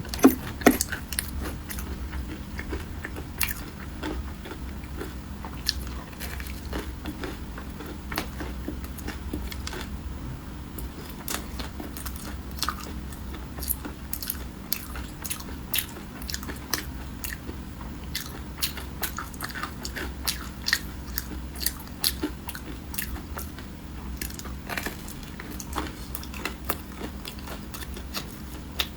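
A person biting and chewing crunchy food close to the microphone: a continuous run of irregular sharp crunches, the loudest just after the start.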